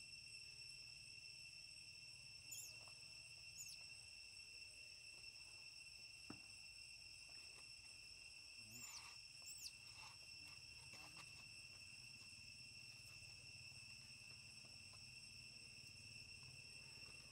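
Faint steady high-pitched drone of forest insects. Two pairs of short, high, falling chirps come a few seconds in and again about nine seconds in, with a single soft knock between them.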